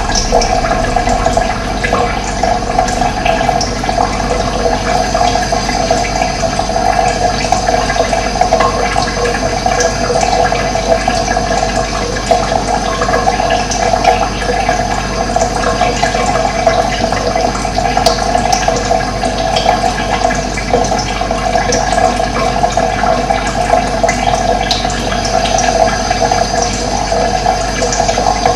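Running water flowing steadily, a continuous even rush with no breaks.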